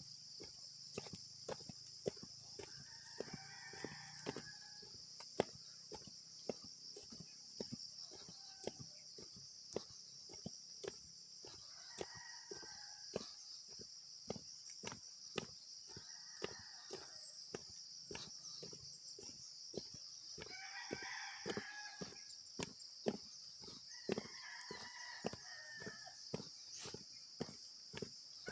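Footsteps on a dirt trail, about two to three steps a second, over a steady high-pitched insect drone. Roosters crow several times, each crow lasting a second or so.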